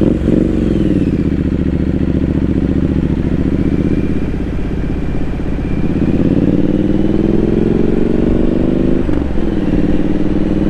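Triumph Street Scrambler 900's parallel-twin engine running under way. Its pitch eases and holds, then rises as the bike accelerates from about six seconds in, with a brief dip near nine seconds before it steadies again.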